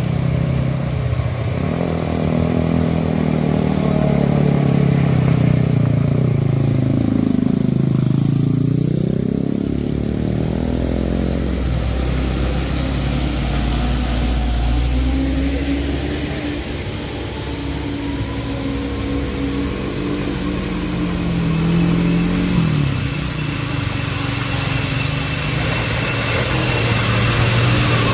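Heavy vehicle engines labouring up a steep climb. The engine pitch dips and climbs again about a third of the way in, over a deep rumble, with a thin high whine through the first half.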